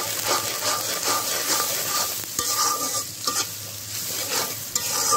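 Flat metal spatula stirring and scraping sliced onions and green chillies through hot oil in a metal kadai, with quick repeated strokes about three a second over the sizzle of the frying.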